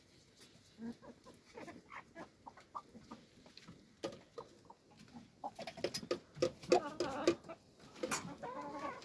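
Chickens clucking while pecking cooked rice from a sheet-metal trough, with short sharp beak ticks against the metal. The clucking grows busier and louder about halfway through.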